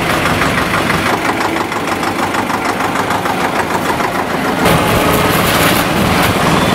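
Diesel tractor engine running at idle with an even, pulsing rhythm. The tractor tows a disinfectant tanker whose hose is spraying. About two-thirds of the way through, the sound turns brighter and hissier.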